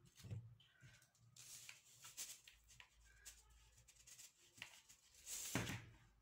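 Faint kitchen handling noise: soft rustles and light clicks, with a brief louder rustle near the end.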